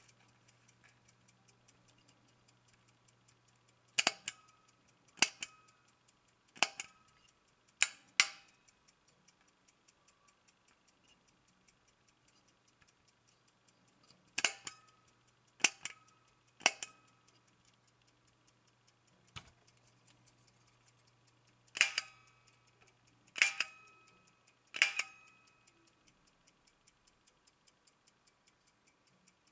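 AChS-1M Soviet aircraft cockpit clock ticking faintly and steadily, while its chronograph push-buttons are pressed with sharp, briefly ringing clicks. The clicks come mostly in sets of three about a second apart, fitting a start, stop and reset of the chronograph.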